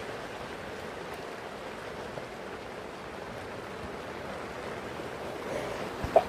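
Steady rain falling on a tent, an even hiss of drops on the fabric, with one brief sharp sound at the very end.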